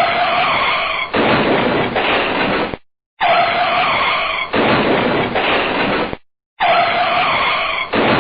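Car braking hard with the tyres squealing and skidding, a clip of about three seconds repeated over and over: it starts three times, each time cut off abruptly after a short silent gap.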